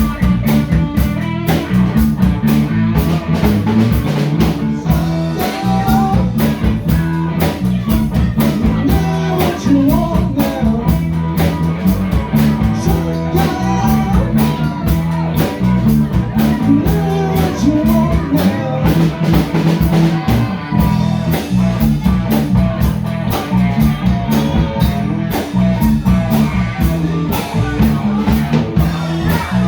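Live band playing a blues-rock jam: electric guitar, bass guitar and drum kit keeping a steady beat.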